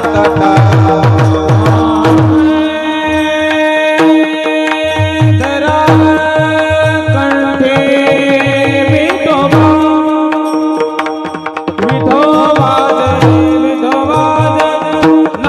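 Marathi varkari kirtan tune: a devotional song sung over a harmonium-like sustained drone and melody, with a hand drum playing low, pitch-bending bass strokes. The drum drops out briefly about two seconds in and again about ten seconds in.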